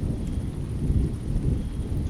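Rainstorm with a low, rolling rumble of thunder that swells and fades unevenly, over faint rain.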